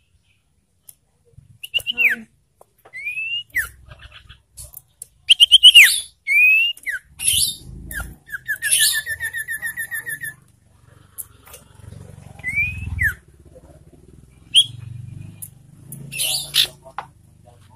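Common iora calling: a series of short whistled notes that slide up or slide down, sharp high chips, and one long even trill in the middle.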